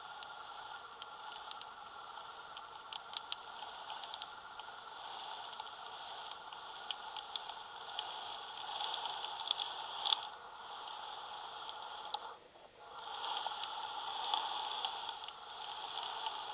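Electric power steering rack of a 2021 Tesla Model Y Long Range making irregular light clicks, like a ball rattling in a paint can, over a steady hiss. The owner traces a clicking felt in the steering wheel to the rack.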